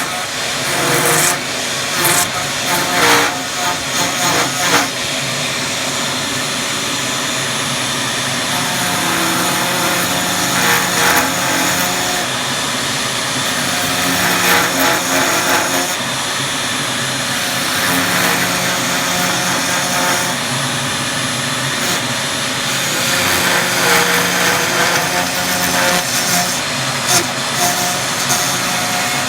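A power tool running steadily under load, with several sharp knocks and clatter in the first few seconds.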